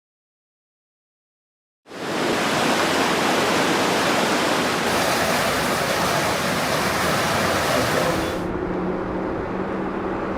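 Silence for about two seconds, then a loud steady rush of storm water. Near the end it switches abruptly to a quieter, duller rush with a faint low hum.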